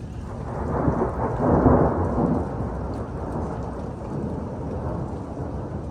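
Thunder rumbling, swelling about a second in and peaking around two seconds, then rolling on lower over steady rain.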